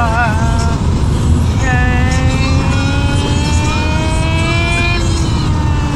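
A child's voice imitating a car engine: a short wavering vroom at the start, then one long engine noise of about three seconds that climbs slowly in pitch like a car accelerating. A steady low rumble runs underneath.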